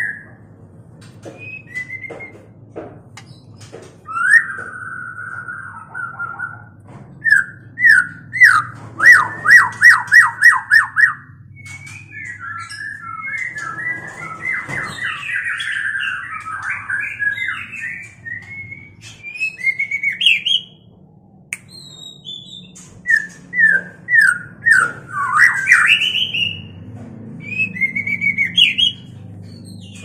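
A courting pair of white-rumped shamas singing and calling: loud whistled phrases and pitch glides mixed with chattering. About seven seconds in comes a run of about ten loud repeated notes, and another quick series of sharp notes follows later.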